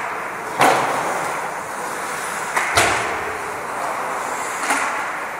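Ice hockey play: skate blades scraping on the ice over a steady rink background, with three sharp sweeping sounds about a second in, near three seconds and near five seconds. The one near three seconds is the loudest and carries a low thud.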